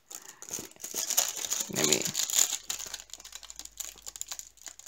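Clear plastic packaging crinkling and crackling as it is handled, with irregular crackles that are busiest in the first half.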